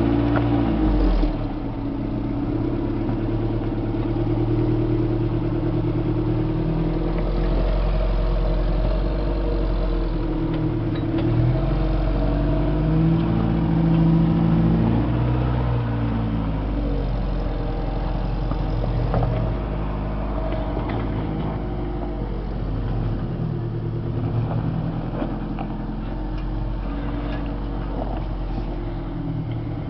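An off-road vehicle's engine running under changing throttle, its revs rising and falling several times, with a few brief knocks.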